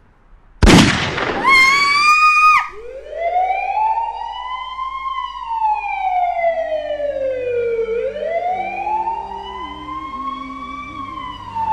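A single loud gunshot bang about half a second in, followed by a brief high ringing tone, then a police siren wailing in long, slow rising and falling sweeps.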